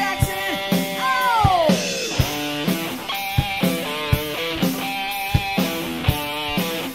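Rock band music: an electric guitar riff over a steady drum beat, with a long falling guitar slide about a second in.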